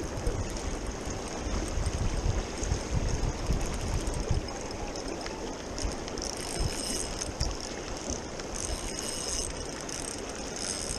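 Fast river water rushing, with wind buffeting the microphone in the first few seconds. From about six seconds in, a spinning reel's mechanism whirs and ticks rapidly as a salmon is played on the line.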